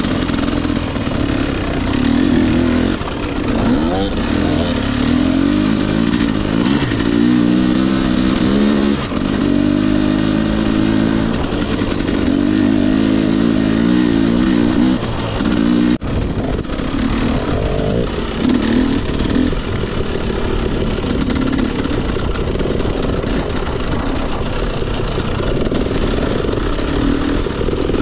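2021 Husqvarna TE250i's two-stroke 250 cc engine running under constantly changing throttle, its pitch rising and falling as it revs up and eases off. There is a sharp momentary break about sixteen seconds in.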